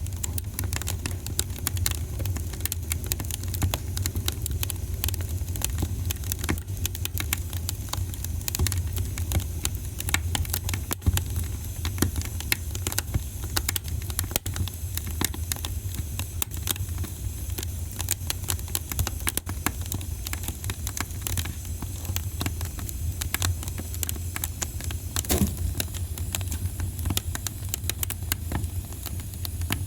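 Wood fire burning in a fireplace: continual sharp pops and crackles over a steady low rumble of the flames.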